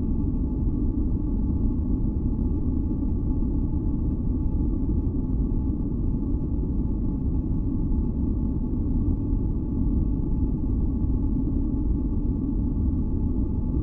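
A steady, deep, rumbling noise for sleep masking, weighted to the low end like brown noise, with faint steady tones humming above it. It does not change.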